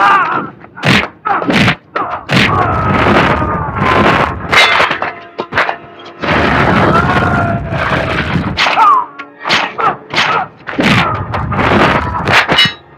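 Action-film fight soundtrack: background music under a rapid run of dubbed punch, whack and thud sound effects with swooshes, a dozen or more hits in quick succession.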